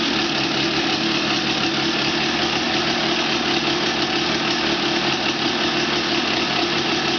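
1989 Honda CR250R's two-stroke single-cylinder engine idling steadily, warming up just after its first start following a rebuild with all-OEM bearings and seals. It runs evenly, which the owner calls perfect.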